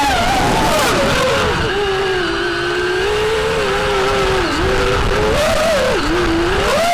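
FPV quadcopter's motors and propellers whining, the pitch rising and falling with the throttle: lower and fairly steady through the middle, then swinging up and down several times near the end.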